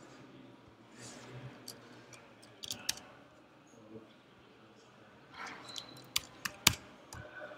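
Scattered taps and clicks from a computer keyboard and mouse while a browser address is typed and reloaded. There are a couple of sharp clicks near the middle and a louder run of clicks about two-thirds of the way through.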